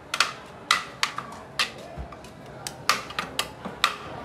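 Metal utensils knocking against steel pots or plates: about eight irregular, sharp clanks, each with a brief ring.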